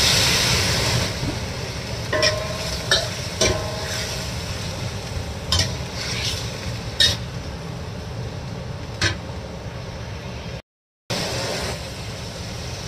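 Chicken wings sizzling in a hot wok, starting with a loud hiss as wine hits the pan and settling into a steady frying sizzle. A metal spatula clinks and scrapes against the wok half a dozen times as the pieces are stirred. The sound cuts out briefly near the end.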